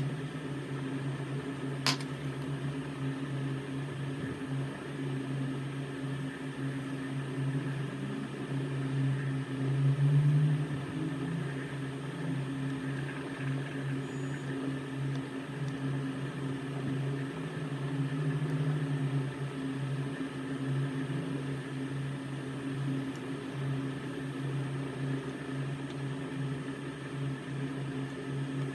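A steady machine hum, like a small fan or motor running, with one sharp click about two seconds in.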